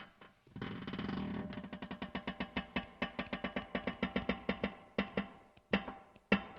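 Metal creaking: a drawn-out groan that breaks into a rapid, even run of creaks, then three or four separate creaks near the end.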